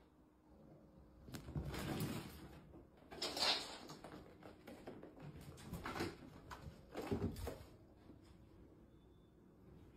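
A few short bursts of soft scuffling and thumps, with a quiet room between them.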